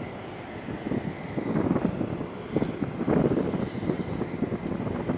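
Wind buffeting the microphone, a gusty low rumble that rises and falls unevenly, strongest about three seconds in.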